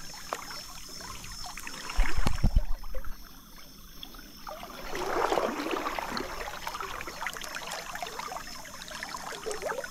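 Shallow river water splashing and trickling. A run of heavy low thumps comes about two seconds in, and a louder splash swells up about five seconds in.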